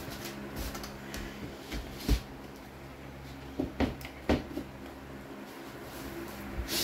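Flooring planks being set down and locked into place on the floor: a sharp knock about two seconds in, then a few quicker knocks and taps around the four-second mark.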